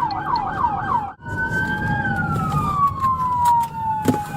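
Police car siren on a fast yelp, which breaks off about a second in and changes to a slow wail gliding down and back up, with a second siren tone running alongside. Engine and road rumble from the pursuing patrol car underneath.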